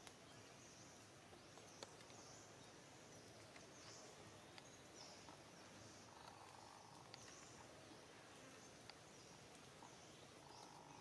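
Near silence: faint outdoor ambience, with soft high chirps repeating about once a second and a few faint clicks.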